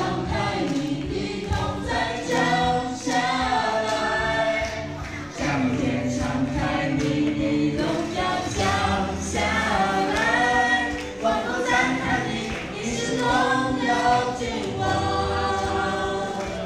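A small mixed group of voices, men and women, singing a worship hymn together into handheld microphones, in continuous sung phrases.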